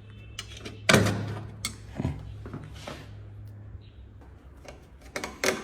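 Sharp plastic clicks and knocks from an intercom handset being handled and swapped, the loudest about a second in and a cluster near the end, over a low steady hum that stops about four seconds in.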